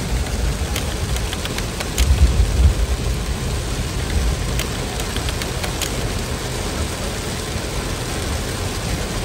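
Heavy rain pouring steadily, with scattered sharp drips and a low rumble that swells about two seconds in.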